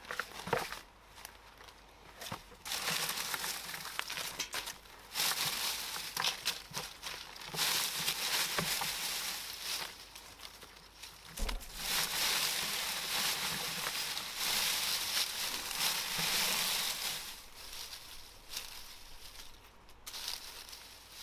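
Dry fallen leaves and twigs being handled and crushed, a dense crackling rustle that comes in long stretches. There is a short pause with a single knock about halfway through, and the sound eases off near the end.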